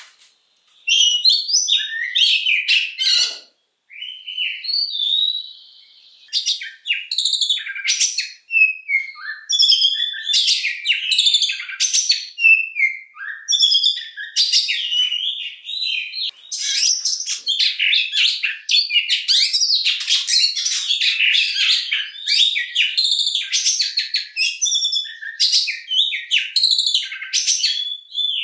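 A male oriental magpie-robin (kacer) singing a long, varied song of rapid whistles, chirps and trills. There are a few short pauses and one long held whistle in the first six seconds, and after that the song runs on almost without a break.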